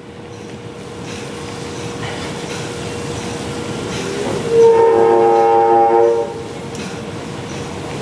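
A loud horn sounds for nearly two seconds about halfway through, several notes at once, over a steady mechanical hum that slowly grows louder.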